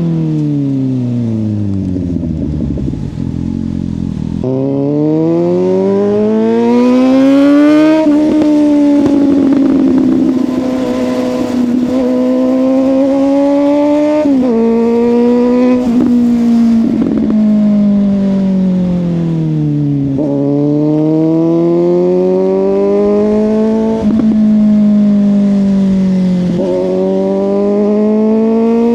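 Suzuki GSX-S750 inline-four with a Yoshimura exhaust, riding: the engine note falls as the bike slows, then rises under acceleration, dropping sharply at several gear changes. The bike then slows again and pulls once more.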